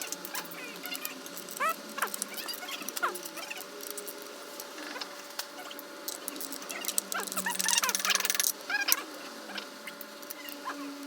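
Hand tools and small metal engine parts clicking and clinking as they are handled, with a denser run of rapid clicks about seven seconds in.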